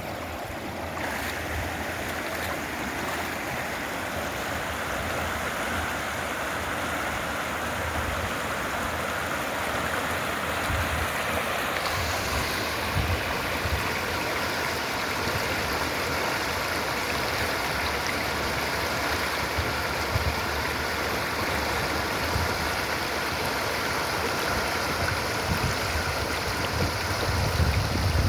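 The New River's water rushing steadily over rocks, an even hiss with no break, with a few low bumps near the end.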